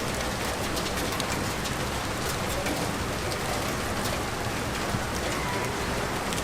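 Steady rain falling and pattering on surfaces, with many separate drops ticking through the constant hiss.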